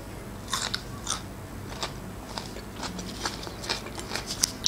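A person chewing raw green bell pepper with the mouth closed: a run of short, irregular crisp crunches, several a second.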